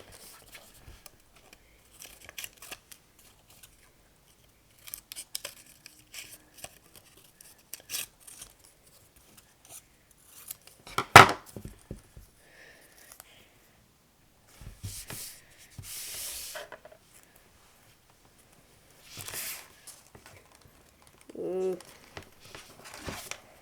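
Paper being cut with scissors and handled: scattered snips and rustles, with one sharp knock about eleven seconds in and a few short bursts of paper noise later on.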